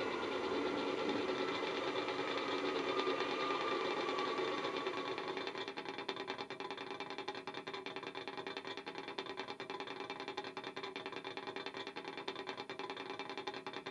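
Class 66 diesel engine sound from a DCC sound decoder (Jamie Goodman's sound file) played through a small EM2 speaker in a Hattons model locomotive. A whine falls in pitch over the first five seconds, then the EMD two-stroke V12 idles with a fast, even beat.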